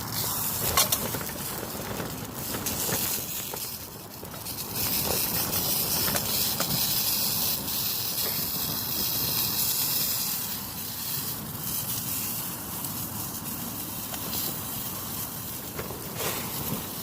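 Sirloin steak frying in a pan: a steady sizzle with scattered spits and crackles, swelling louder for a few seconds in the middle.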